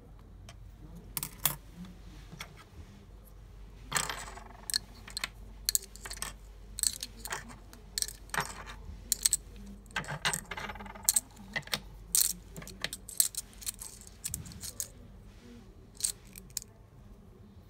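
Metal key blanks with blue plastic heads clinking and clacking together as a handful is picked through and sorted: many irregular sharp clinks, thickest in the middle and thinning out near the end.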